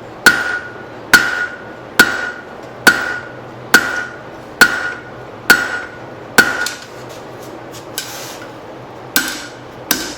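Six-pound hand hammer striking hot leaf-spring steel on an anvil to draw it out: a steady blow a little under once a second, each with a short ring. The strikes pause for about two seconds, with one light tap, before resuming near the end.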